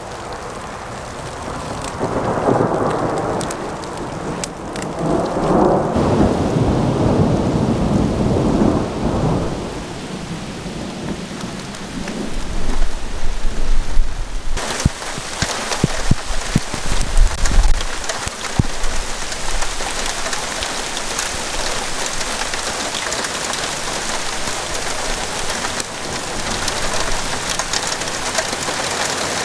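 Thunderstorm: thunder rumbles in two long rolls over the first ten seconds, then, with more heavy thunder, a downpour of rain and hail starts suddenly about halfway through and keeps up as a steady loud hiss.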